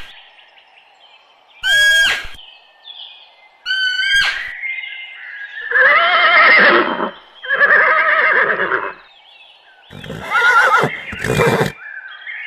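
Horse whinnying and neighing, about five loud calls a second or two apart, each with a shaky, wavering pitch; the later calls are longer.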